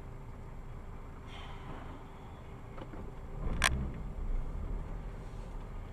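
Steady low road and engine rumble of a vehicle, as heard by a dashcam, with one sharp bang a little past halfway through, followed by a heavier low rumble for a second or two.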